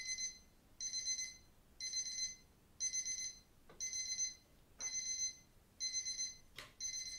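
Electronic alarm-clock beeping: a quick cluster of high beeps repeated about once a second.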